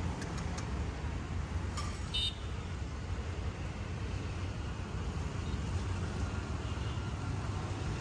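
Street traffic noise: a steady low rumble of passing vehicles, with a brief sharp, higher-pitched sound about two seconds in.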